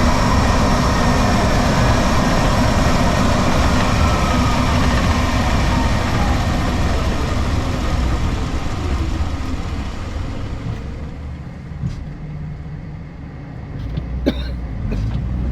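Converted VW's DC electric motor and transmission running under loud road and wind noise, with a faint whine that falls steadily in pitch as the car slows. Near the end it goes quieter, with a couple of sharp clicks.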